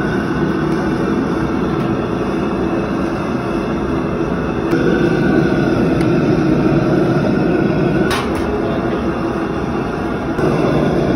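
Gas burner under a boiling pot of soup, burning with a loud, steady rushing noise that carries a low hum. A single sharp click comes about eight seconds in.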